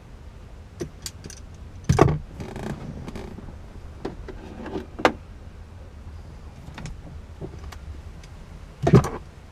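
Scattered metallic clicks and knocks of hand tools and bolts being handled while fitting a grab handle, with two louder thumps, about two seconds in and near the end.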